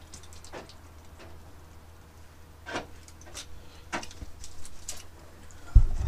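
A few light, scattered clicks and taps of small parts being handled, over a steady low hum, with a heavy dull thump near the end.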